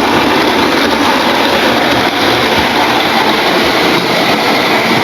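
Model railway locomotive running along the track: a steady whir of its motor and wheels on the rails.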